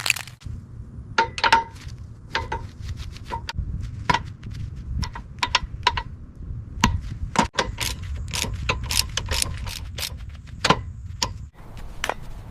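Irregular metallic clinks and taps, as of hand tools and small metal parts being handled, several ringing briefly, over a low steady rumble.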